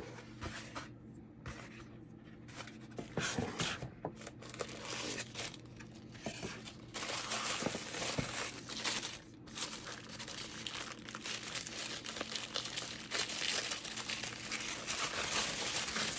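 Tissue paper crinkling and rustling as a planner wrapped in it is unwrapped by hand, sparse at first and busier from about three seconds in.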